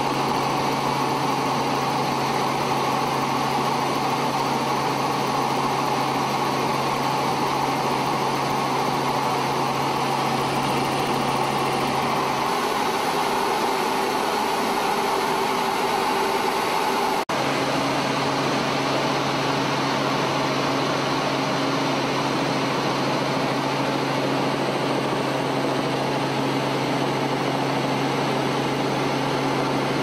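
Robinson R44 Raven helicopter in flight, its engine and rotor making a steady drone inside the cabin. The sound breaks off for a moment about 17 seconds in.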